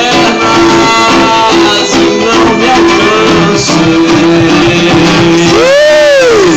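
Street buskers playing: a steady held drone note under plucked string notes, with one note sliding up and back down near the end.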